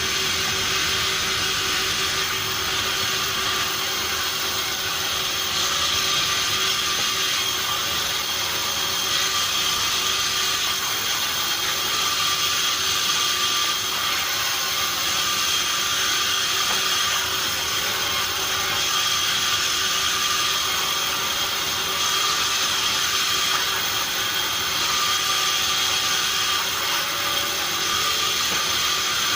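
Sawmill saw running steadily: a constant high whine over dense mechanical noise.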